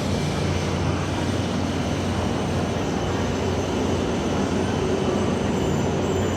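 Hokuriku Shinkansen train pulling into the platform, a loud, steady rush of running noise with a faint hum underneath.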